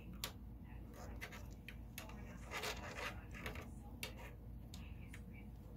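Faint handling noise as a CPU cooler's mounting backplate is fitted against the back of a motherboard: scattered light clicks and taps, with a short scraping rub about halfway.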